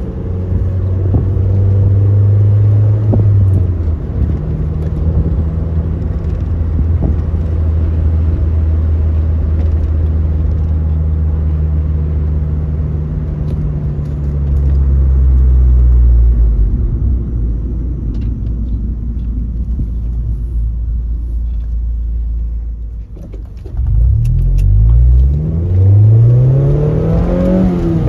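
Mazda MX-5 (NC1) four-cylinder engine and exhaust under way, holding a steady note that slowly drops in pitch through the middle. Near the end the engine is revved hard: after a brief lull, the pitch rises several times in quick succession as it accelerates.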